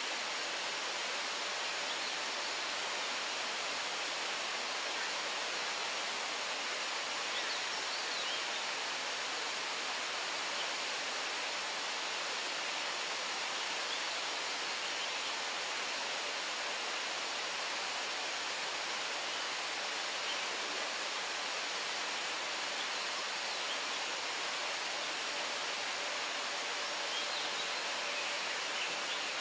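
Steady rushing of running water, an even unbroken hiss, with a few faint high chirps now and then.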